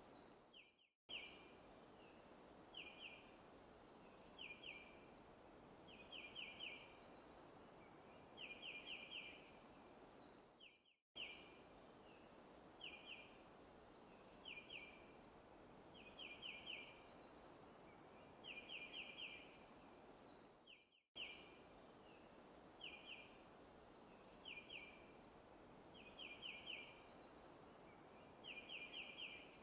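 A bird chirping in short quick clusters of two to four high notes, one cluster every second or two, over a steady soft hiss of forest ambience. The recording drops out for an instant about every ten seconds and the same pattern repeats.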